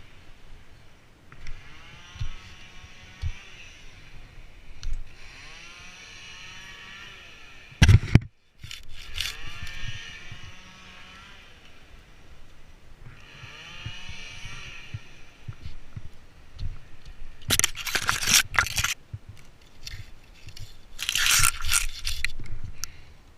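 A chainsaw at a distance, revving up and down again and again as it cuts. Several loud scraping, crunching noises close by cut in over it, the loudest about a third of the way in and twice near the end.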